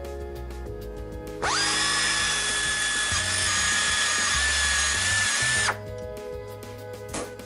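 Desoutter pneumatic drill running free. It spins up to speed about a second and a half in, holds a steady high whine with air hiss for about four seconds, then cuts off suddenly.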